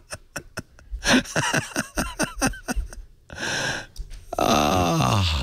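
People laughing in quick rhythmic bursts, then a hissing breath and, near the end, a long sigh that falls in pitch as the laughter winds down.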